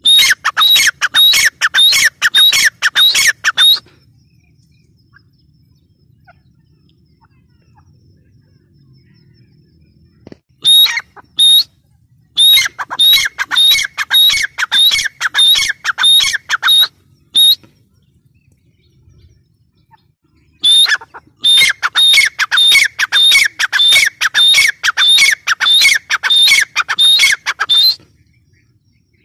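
Gray francolin (teetar) calling, a loud, fast run of repeated shrill notes about two or three a second, in three bouts separated by pauses of several seconds.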